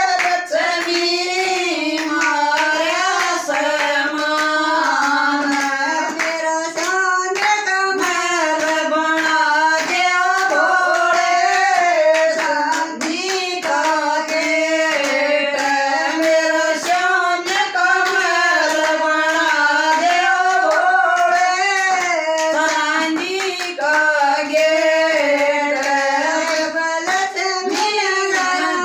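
A Haryanvi devotional folk song to Shiva (Bhole) sung in a high voice, over steady rhythmic hand clapping.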